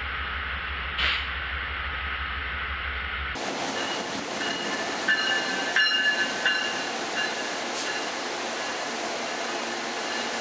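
Amtrak passenger train standing at a station with its diesel locomotive idling: a steady low hum and hiss, with a short burst of air hiss about a second in. After a cut at about three and a half seconds, the sound of the stopped double-deck train continues, with a few brief high-pitched squeals between about five and seven seconds.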